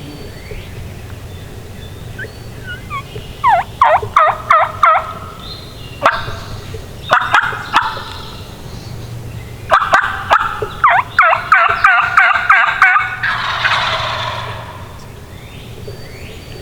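Wild turkey toms gobbling close by: three loud, rapid rattling gobbles, about four, seven and ten seconds in, the last one drawn out and overlapping like more than one bird.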